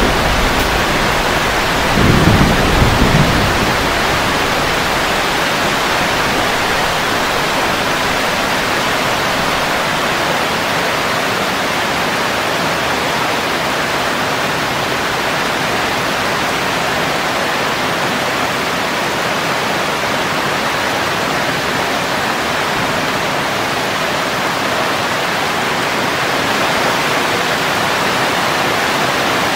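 Steady heavy rain falling, an even hiss throughout, with a low rumble of thunder about two seconds in that dies away within a couple of seconds.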